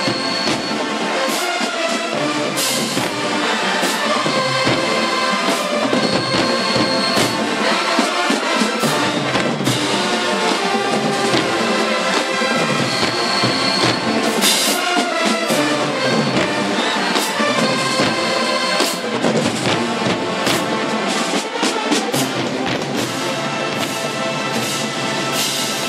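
HBCU marching band playing loudly, with sousaphones, trombones and trumpets carrying the tune over drum and cymbal hits.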